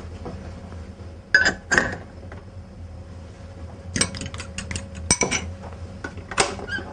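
Metal clinks and clatter of a stand mixer's stainless steel bowl and attachments as the flat beater is taken off and the dough hook fitted. There are two ringing clinks about a second and a half in, then runs of quick clicks and knocks around four to five seconds in and again near the end.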